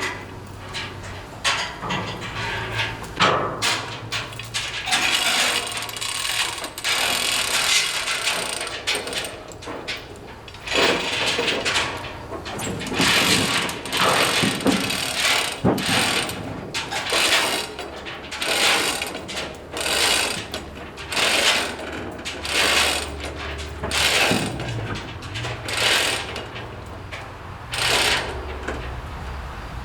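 Ratchet tie-down strap being cranked tight: a run of short ratcheting strokes, about one a second, as the load is strapped down.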